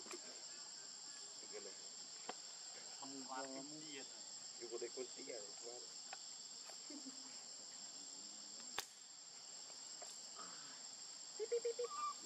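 Steady, high-pitched chorus of forest insects droning without a break. A few faint, short vocal sounds come through at times, and a single sharp click sounds about nine seconds in.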